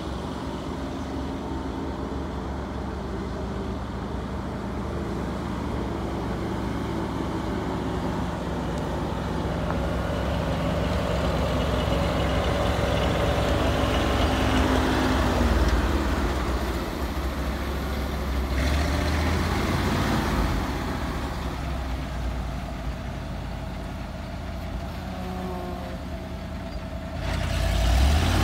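1974 Ford feed truck's engine running as the truck drives across a dirt yard, growing louder as it approaches. The engine note drops about halfway through, and it gets suddenly louder again near the end as the truck pulls up close.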